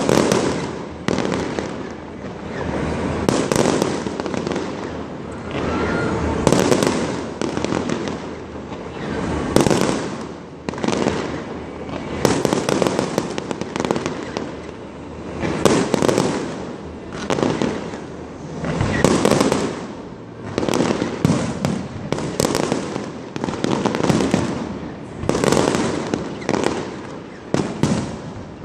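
Aerial firework shells bursting in a dense, irregular series, a bang every second or two with ringing after each, picked up on a phone's microphone.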